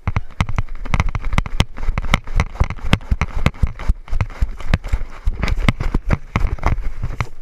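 A player running, irregular footfalls several times a second with gear jostling and heavy thumps on the body-worn microphone.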